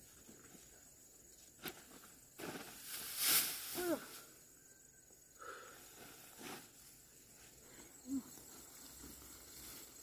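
A click, then a few brief swishing, rustling noises, the loudest about three seconds in. Just before four seconds there is a short falling vocal sound.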